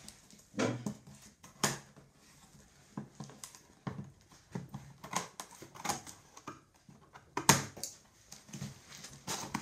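Scissors cutting packing tape on a cardboard box, with tape ripping and cardboard flaps crinkling: a string of short, irregular snips, rips and crackles.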